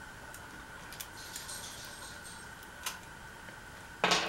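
Light clicks and faint metallic clinks of small hardware being handled. A single sharp knock about four seconds in is the loudest sound.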